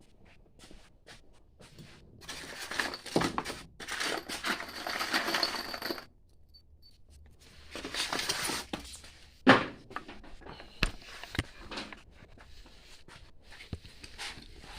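Rustling and clattering of tools and objects being handled, in two long stretches, with a sharp knock about halfway through and a few lighter clicks.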